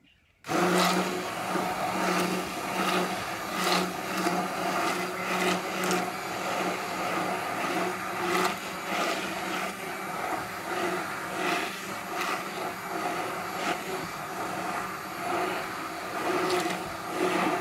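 Handheld immersion blender switched on about half a second in and running steadily, its motor hum level throughout as it blends a flour, milk and egg batter. Occasional clicks sound over the hum.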